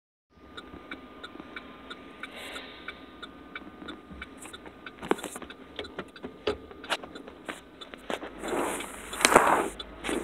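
Inside a car: a steady ticking about twice a second with a faint steady tone through the first half, then phone handling knocks and scraping, with two rushes of noise near the end, the second the loudest.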